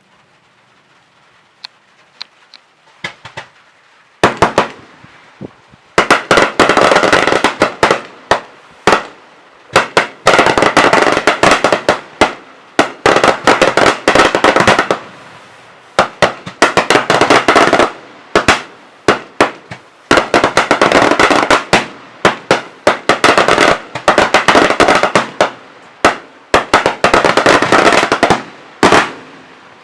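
Daytime fireworks: a few single bangs, then from about four seconds in, rapid volleys of loud firecracker bangs in bursts of a few seconds each, separated by short pauses.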